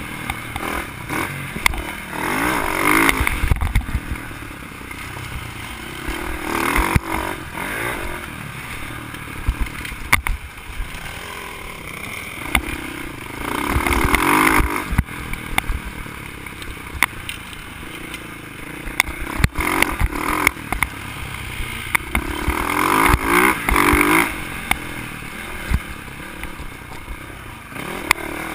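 Dirt bike engine running along a bumpy trail, surging several times as the throttle opens and easing off between. Short knocks and rattles from the bike going over the bumps run throughout.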